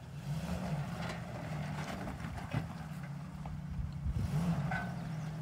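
Turbocharged Toyota 4Runner's 3.4-litre 5VZ-FE V6 running at low throttle while crawling over rocks, with two brief rises in revs, about half a second in and near the end.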